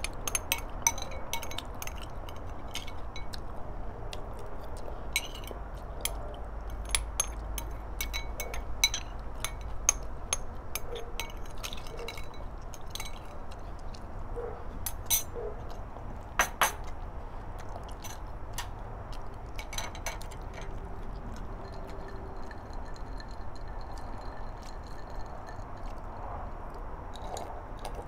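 Spoon clinking and scraping against a small glass bowl while eating: many light, ringing clinks, thick at first and thinning out over the last several seconds.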